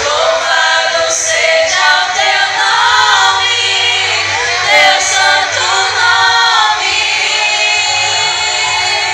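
Two women singing a Portuguese gospel song together into handheld microphones.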